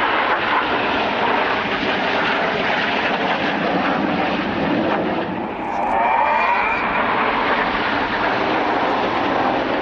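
BAE Hawk T1 jets of the Red Arrows flying overhead in formation: a loud, steady jet-engine rush, swelling about six seconds in as a jet passes, its tone sweeping in pitch.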